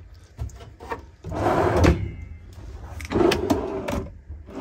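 Kitchen cabinet drawers being slid open and shut in the camper van's galley: two longer sliding runs with a few knocks and clicks between them.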